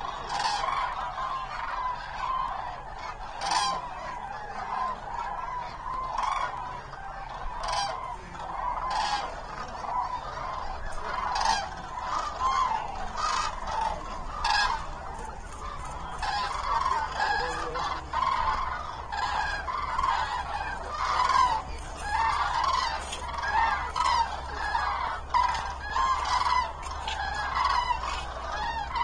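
A large flock of common cranes calling: a dense chorus of many overlapping trumpeting calls, with louder single calls standing out every second or so.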